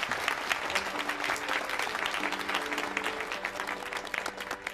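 Audience applauding, with soft held music notes underneath; the clapping thins out near the end.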